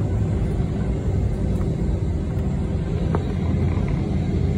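Cabin noise of an Airbus A321 taxiing: a steady low rumble from the idling jet engines and the airframe rolling over the taxiway, with a faint steady hum under it.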